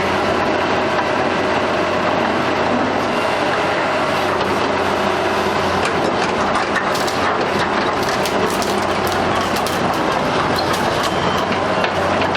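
Sumitomo S280FA hydraulic excavator running with a steady engine note, with repeated metallic clanks and knocks joining in from about halfway.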